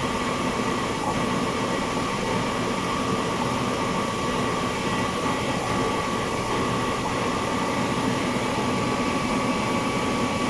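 Screw air compressor running: a steady machine noise with a constant high whine on top.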